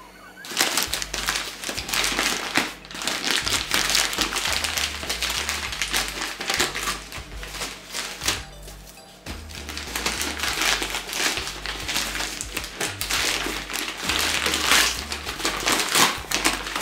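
Gift-wrapping paper crinkling and rustling loudly as a wrapped package is handled and turned, with brief pauses, over background music.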